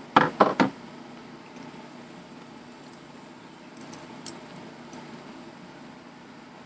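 Saw chain being handled and worked onto a chainsaw's guide bar: three quick loud rattles of the loose links about half a second in, then a few faint clicks.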